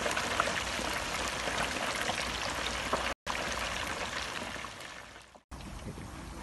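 Small whole fish deep-frying in hot oil in an electric deep fryer: a steady sizzling hiss with scattered crackles and pops. It breaks off for an instant about three seconds in, fades out about five seconds in, and returns quieter.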